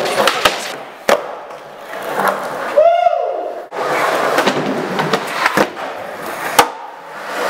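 Skateboard being ridden and tricked: wheels rolling on concrete, with several sharp pops and landing clacks. There is a brief squeal about three seconds in.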